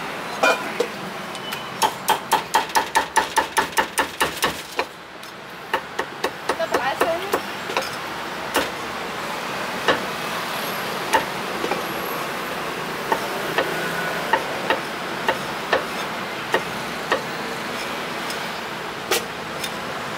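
Meat cleaver chopping braised pork belly and pork offal on a thick wooden chopping block. About two seconds in comes a quick run of a dozen or so chops, then a short pause, then single chops about one every half second.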